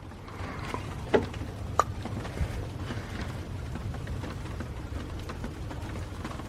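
Rain falling steadily during a thunderstorm, with a steady low rumble underneath and a few sharp taps of drops about a second and two seconds in.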